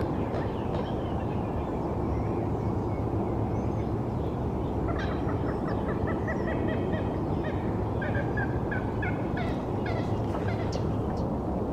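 A small songbird calling: a sliding note near the start, then quick runs of short, repeated chirps through the second half, over a steady low rumble of city traffic.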